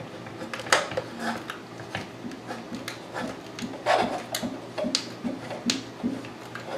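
Screws being driven into a hard drive's mounting holes with a Phillips screwdriver: scattered small metal clicks and knocks, with a run of short repeated squeaks as the screwdriver is turned.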